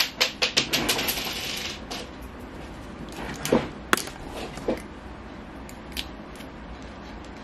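Small hard makeup tubes and containers clinking and clicking as they are handled on a table: a quick flurry of clicks in the first two seconds, then a few separate taps and clicks.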